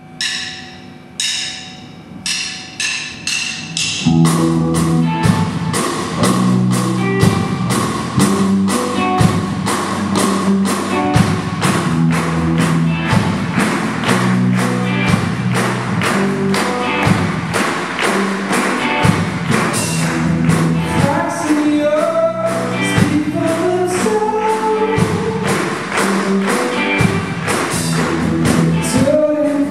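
Live rock band of drums, electric guitars and bass starting a song: a few sharp drum hits over the first four seconds, then the full band comes in about four seconds in with a steady beat. A male lead voice starts singing after about twenty seconds.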